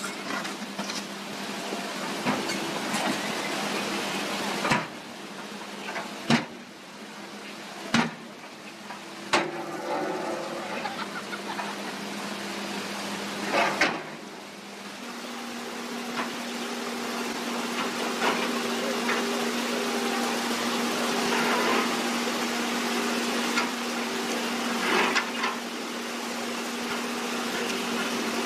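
Water rushing through a breached stone weir, with the steady hum of a Volvo tracked excavator's diesel engine underneath. A handful of sharp knocks ring out in the first half as the bucket works against the stonework.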